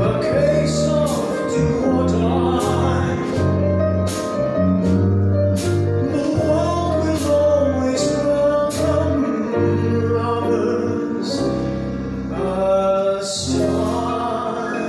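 A man singing into a microphone over a live band with piano and drums. Sustained sung notes over bass and chords, with repeated cymbal strokes.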